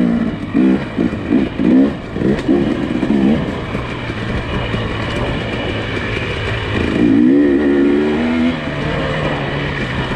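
Nissan Pathfinder SUV engine revving up and down unevenly, in quick rises and falls over the first few seconds, settling to a steadier drone, then revving and easing again about seven seconds in.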